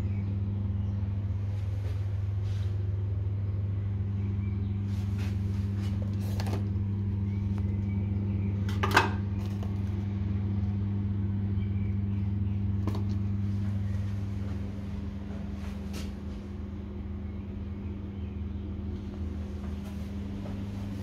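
A steady low mechanical hum, with scattered clicks and handling knocks, the sharpest about nine seconds in. The hum's deepest tone fades about fifteen seconds in.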